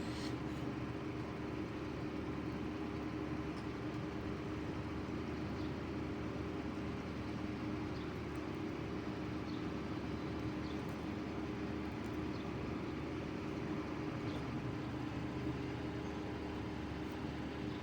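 A steady low machine hum with a couple of held tones, unchanging throughout.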